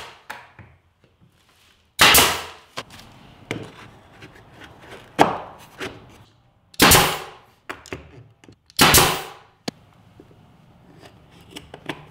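Pneumatic nail gun firing nails into wooden baseboard molding: three loud sharp shots about two, seven and nine seconds in, each trailing off over about half a second, with a smaller shot about five seconds in and light taps and clicks of handling between.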